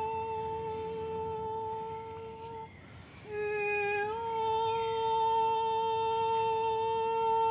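A woman's voice singing long, steady wordless tones in healing-style vocal toning. The note breaks for a breath about two and a half seconds in, comes back a little lower, then slides up and holds.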